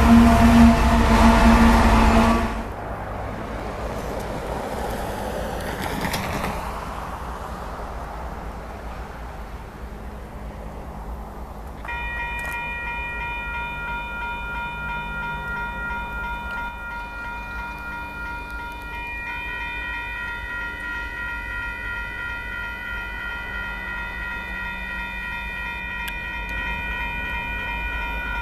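A diesel locomotive's air horn sounding loudly, cut off about two and a half seconds in. Then the low rumble of an approaching train, and from about twelve seconds in a railroad grade-crossing bell ringing steadily.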